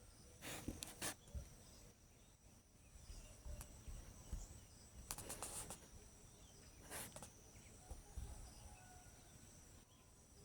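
Faint outdoor ambience with a steady high-pitched insect trill, broken three times by short bursts of noise.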